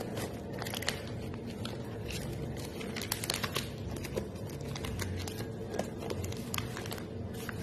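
Clear plastic sheet protectors crinkling and crackling as a hand leafs through them, in many small irregular crackles, over a steady low background hum.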